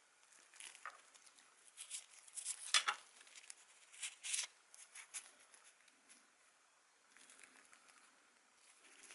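Scattered light clicks, scrapes and rustles of small parts and tools being handled by hand, the loudest cluster about three seconds in.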